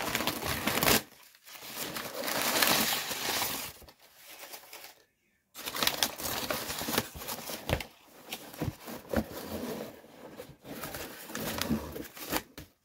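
Brown kraft packing paper crumpling and rustling in irregular bursts as hands push it aside inside a cardboard shipping box, with a brief silent break about five seconds in.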